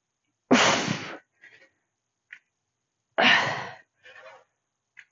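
A woman breathing out hard twice, about two and a half seconds apart, each a sharp, noisy exhale that fades away. This is exertion breathing on the lifts of a heavy two-kettlebell deadlift.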